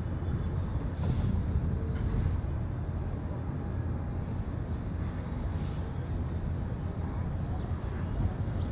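Steady low rumble of heavy vehicle engines and traffic. Two short hisses of air, like air brakes being released, come about a second in and again near six seconds.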